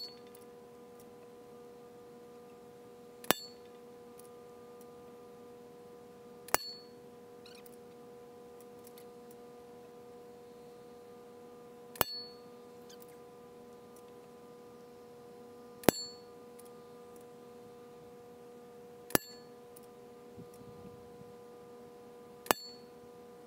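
Seven sharp clicks, about three to four seconds apart, over a steady hum of several even pitches.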